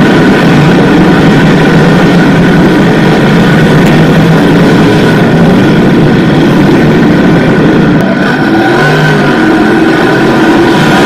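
Several small-block V8 modified race cars running hard together, loud and continuous, with engine pitch rising and falling as individual cars go by.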